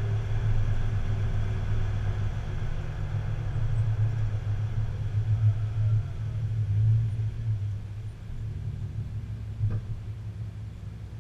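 Tow vehicle running with a steady low rumble, easing off somewhat near the end, with a single short click late on.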